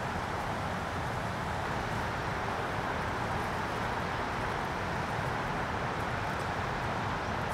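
Steady outdoor ambient noise, an even wash with no distinct events.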